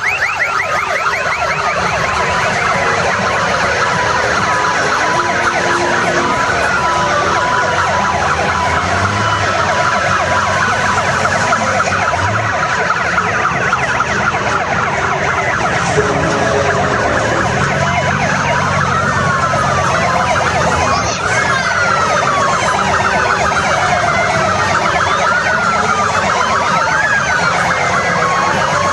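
Several sirens wailing at once, their pitches rising and falling out of step with one another, over the low running of motorcycle engines.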